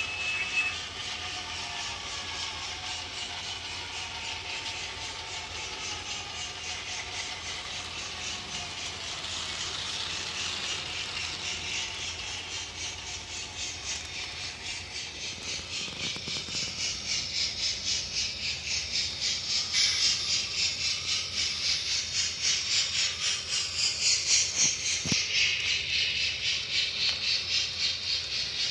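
Model train running on its track: a steady high-pitched hiss and rattle from the wheels and the DCC sound decoder's speaker, pulsing more strongly from about halfway through. A falling tone fades out right at the start.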